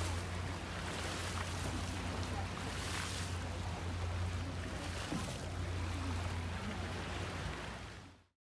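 Boat engine running with a steady low hum under the wash of water and wind, fading out about eight seconds in.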